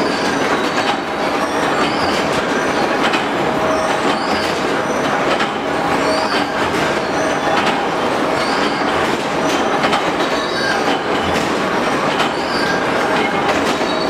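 An induction forging line running: a dense, loud mechanical din with a short high metallic squeal repeating about once a second and scattered sharp clicks and knocks of hot steel billets being fed and handled.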